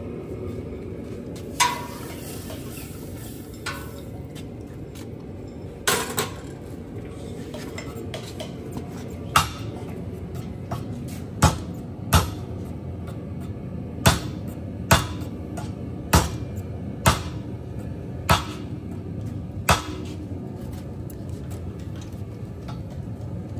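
Hand hammer striking the red-hot jaws of blacksmith's tongs over an anvil horn: about a dozen separate sharp metallic blows at irregular spacing, one to two seconds apart, over a steady low hum.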